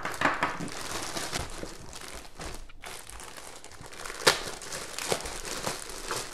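Plastic poly mailer bag crinkling and rustling as it is handled and its contents are pulled out, with one sharp crack about four seconds in.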